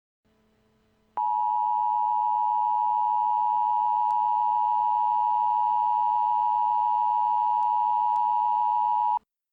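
Emergency alert attention tone: a single steady electronic tone just under 1 kHz, starting abruptly about a second in and cutting off sharply near the end, signalling that an alert message is about to follow.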